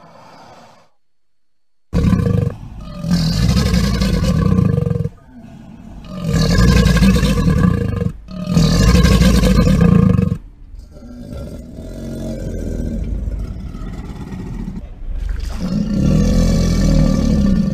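Crocodile calling: a string of deep, rough calls a few seconds long each, starting after a second of silence. The first three are loudest and the later ones quieter.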